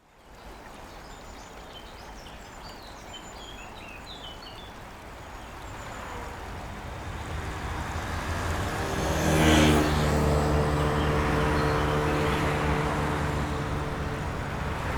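Outdoor ambience with small birds chirping, then a rising rush that peaks about nine seconds in and settles into a steady low drone of several held tones.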